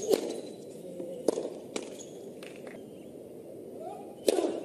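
Tennis ball struck by rackets and bouncing on a hard court: several sharp pops at irregular gaps, the loudest near the end.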